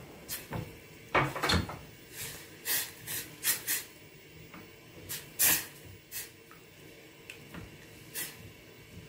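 Silicone spatula stirring and scraping tomato sauce around a stainless steel saucepan, a string of short scraping strokes at irregular intervals, most of them in the first half.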